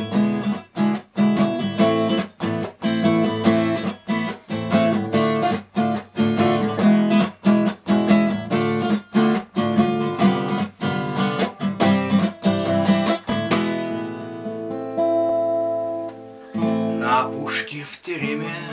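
Acoustic guitar strummed in a steady rhythm, closing on a chord left to ring about two-thirds of the way through. Near the end a new guitar part begins.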